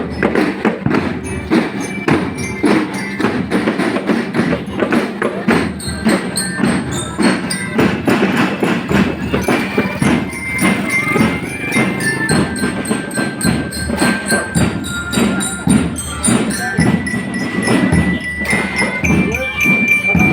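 Music with a busy, steady percussion beat and a few held high notes later on.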